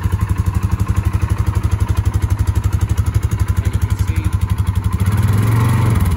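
Polaris Sportsman 570 ATV's single-cylinder engine running at idle with an even, fast pulse. About five seconds in, the engine speeds up and grows louder.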